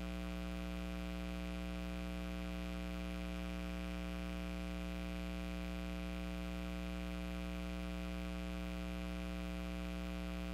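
Steady low electrical hum or buzz on the audio feed, one unchanging droning tone with many overtones and no crowd, whistle or voice above it.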